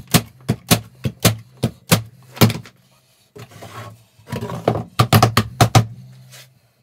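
Corded electric staple gun firing in quick succession, a sharp clack about four times a second over a low hum, fastening pallet boards together. After a short pause there is a cluster of wooden knocks and clatter as the stapled board panel is handled and set down.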